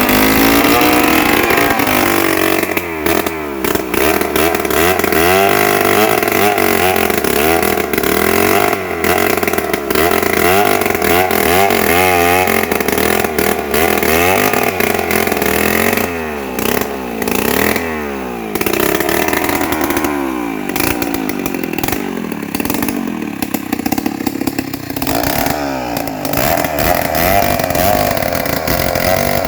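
Stihl 070 two-stroke chainsaw running hard while ripping a trembesi log lengthwise, its engine pitch repeatedly dipping and recovering as the chain loads up in the cut.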